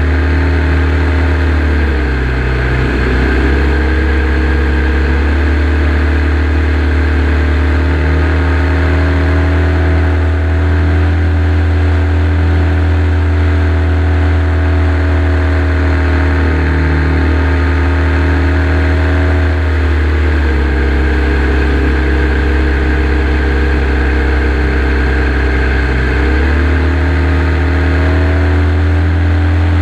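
Evolution 7-77 seven-cylinder radial engine of an RC Ag-Cat running in flight, heard close up from a camera on the airframe. Its pitch dips and recovers about two seconds in, drops lower about twenty seconds in, and rises again about six seconds later.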